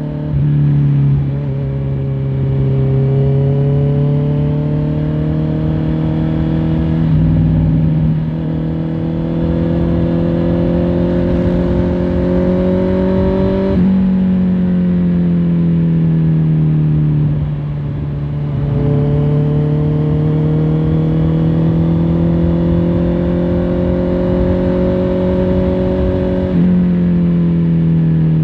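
Honda CBR650R's inline-four engine and exhaust while riding, the pitch climbing slowly under throttle and falling off on deceleration, with sudden jumps in pitch at several gear changes.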